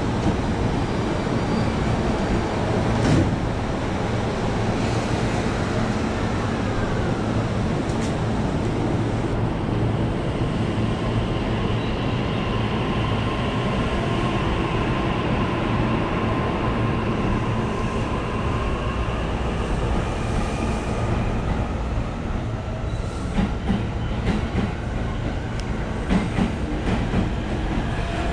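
Electric train running through the station: a steady low rumble with a thin high whine that slowly drifts in pitch through the middle, then a quick run of wheel clacks over rail joints in the last few seconds.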